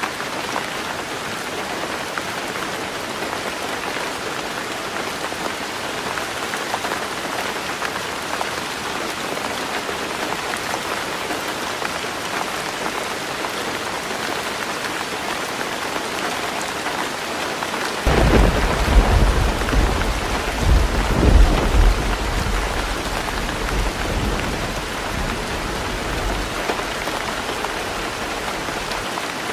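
Heavy rain falling steadily on a roof. A little past halfway, a low rumble of thunder sets in suddenly, swells twice and fades back into the rain after several seconds.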